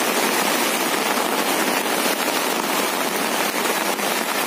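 Heavy rain pelting down on a surface, a dense, steady crackling patter.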